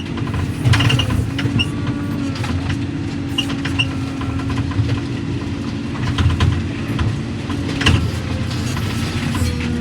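Diesel heavy equipment running steadily, with scattered clanks and rattles; the engine note drops a little about eight seconds in.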